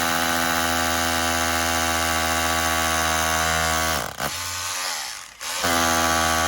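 Power drill running at steady full speed while drilling a pilot hole into a stone wall. About four seconds in it winds down and stops, then starts again about a second later.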